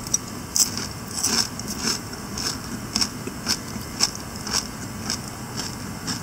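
Close-up crunchy chewing of a deep-fried whole char's head, with a sharp crunch about twice a second.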